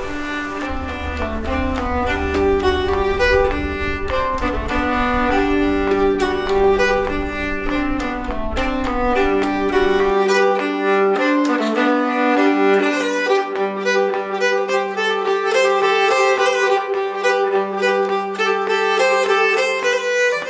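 Instrumental background music led by a violin, with a lively run of changing notes.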